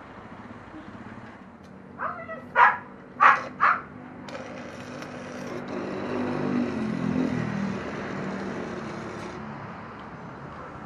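A dog barks four times in quick succession. Then a stick (arc) welder crackles and hisses for about five seconds as the electrode is run on a steel motorcycle exhaust pipe, cutting off sharply.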